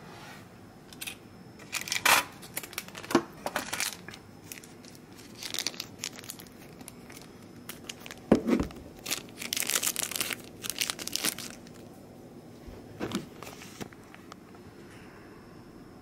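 Plastic bags and wrapping crinkling in irregular bursts as they are handled, with a dull knock about halfway through.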